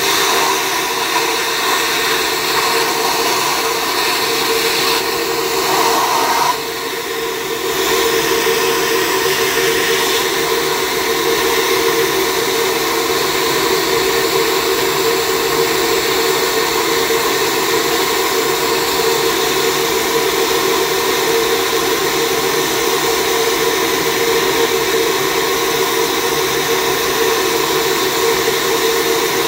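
Cylinder-head flowbench running, its motors pulling air steadily through a ported LS1 intake port at about 314 CFM: a loud, even rush of air with a steady hum. The level drops briefly about six and a half seconds in.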